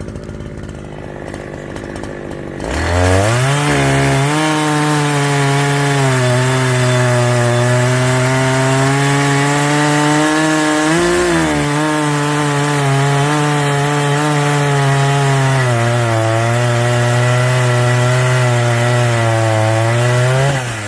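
Two-stroke chainsaw opened up to full throttle about three seconds in, then held at high revs while sawing through wood, with a brief dip in pitch about eleven seconds in; the engine drops off right at the end.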